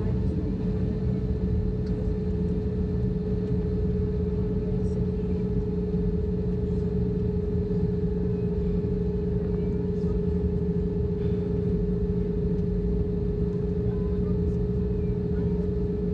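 Steady drone of an Airbus A320 on the ground: two even hum tones over a low rumble, with no spool-up or change in level.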